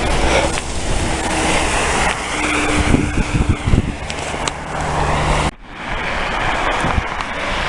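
Wind buffeting the microphone and footsteps in snow while walking through a parking lot, over the steady hum of a vehicle engine. The noise cuts out sharply about five and a half seconds in, then picks up again.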